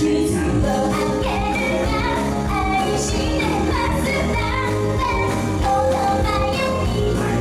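A teenage girl singing a pop song into a handheld microphone over a loud backing track with a steady beat.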